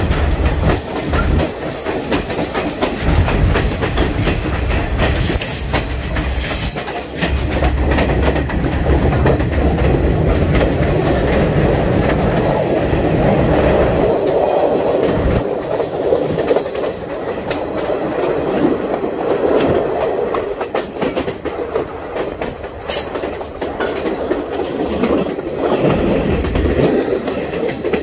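Sri Lanka Railways train running along the track: a steady rumble of the wheels and carriage with quick clattering clicks over the rails. The deep low rumble eases about halfway through.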